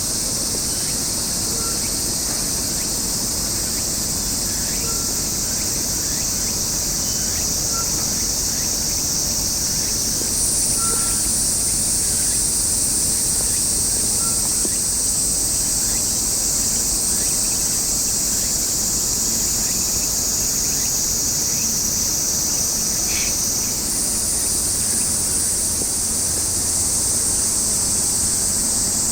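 A steady, high-pitched insect chorus that shifts pitch twice, with faint short chirps over a low background rumble.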